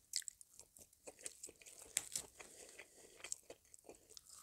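A person chewing a mouthful of chicken Caesar salad close to a lapel microphone: faint, irregular small crunches and wet clicks of the mouth.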